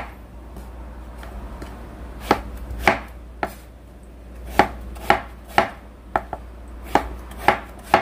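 Chef's knife chopping eggplant on a wooden cutting board: about ten sharp knocks of the blade striking the board, irregularly spaced, starting after a pause of about two seconds.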